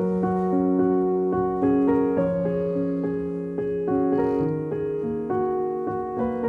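Background piano music: a slow melody of single notes over long held low notes.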